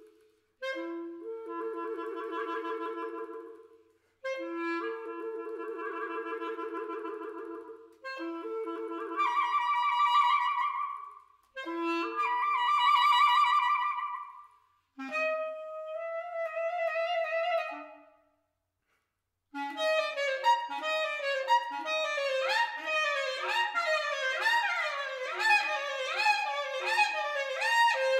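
Solo clarinet playing a contemporary piece: several long held notes in its low register, each cut off by a short break, then swelling higher notes, and after a pause of about a second and a half a fast, rhythmic flurry of short notes.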